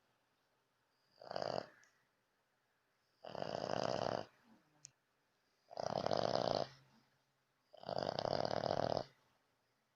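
French bulldog snoring: four snores about two seconds apart, the first one short, the loud snoring the breed is known for.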